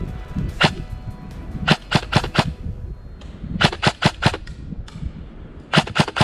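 Airsoft guns firing: a single shot, then three rapid volleys of three or four shots each, spaced about a second and a half apart, during an exchange of fire in the woods.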